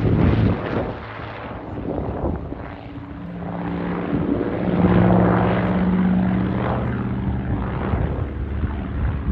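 The twin Pratt & Whitney R-2800 radial engines of a Grumman F7F Tigercat droning as it flies aerobatics overhead, the engine note swelling loudest about five seconds in and then easing off.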